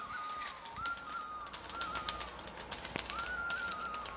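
Mustard seeds spluttering in hot sesame oil in an iron kadai: a dense run of small pops and crackles as the seeds burst, the sign that the oil is hot enough for tempering. A thin, wavering high tone runs alongside.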